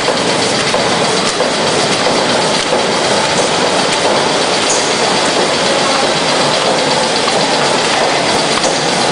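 Paper creasing and die-cutting machine running with a wooden die, giving a loud, steady mechanical noise throughout.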